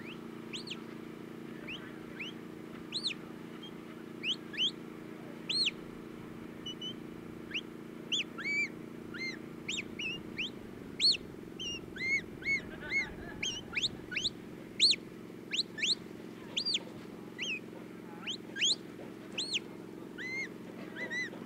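Sheepdog handler's shepherd whistle giving commands to his working dog: a run of short, sharp whistle notes that rise and fall, sparse at first and coming thick and fast in the second half, over a steady low hum.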